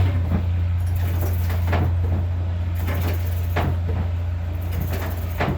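A machine's electric motor comes on just at the start and hums steadily at a low pitch, with sharp knocks recurring about every two seconds.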